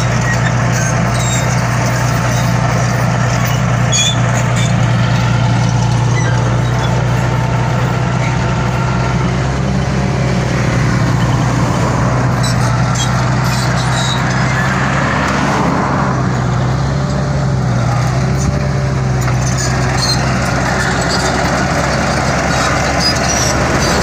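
Komatsu crawler bulldozer's diesel engine running steadily close by, its pitch shifting briefly about two-thirds of the way through.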